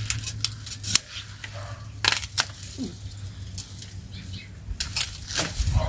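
Pruning shears snipping and dry Knockout rose canes snapping and rustling as the bush is cut back: irregular sharp clicks and cracks, with a few dull bumps near the end.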